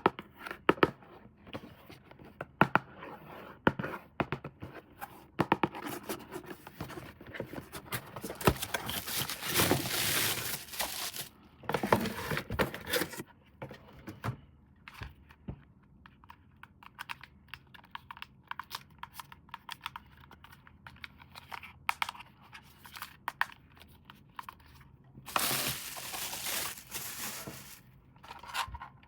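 Toy packaging being handled and opened: plastic crinkling and tearing, with many small clicks and taps. There are longer stretches of tearing about ten seconds in and again near the end.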